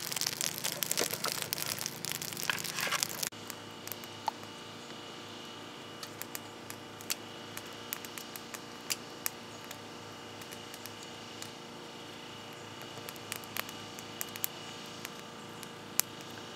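Aluminium foil crinkling and dry twigs rustling as they are handled, for about three seconds; then it cuts abruptly to a small fire of dry twigs burning, with sparse, quiet crackles and pops.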